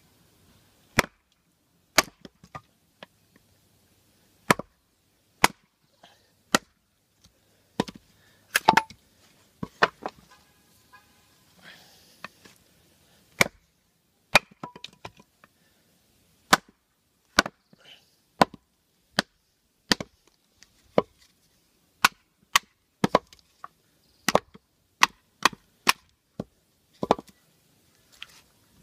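A large knife chopping into the edge of a block of wood: a long series of sharp, separate knocks, roughly one a second, some in quick pairs.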